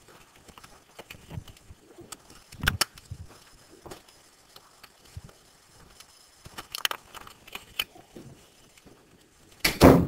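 Irregular small clicks, taps and rattles of handling noise, with a louder knock about three seconds in and a louder burst just before the end.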